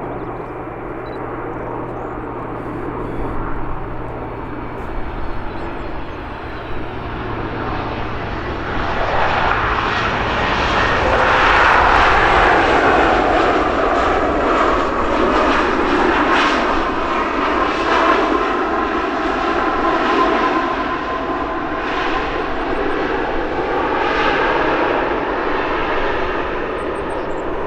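Airliner engines passing close, their noise swelling about a third of the way in and staying loud for the rest, with faint steady engine tones over the rush.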